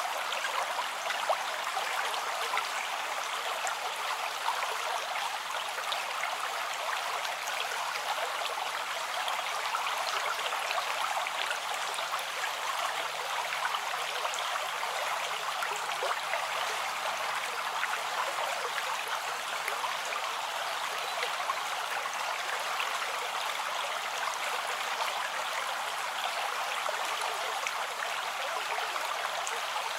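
River water running steadily over rocks, an unbroken babbling rush.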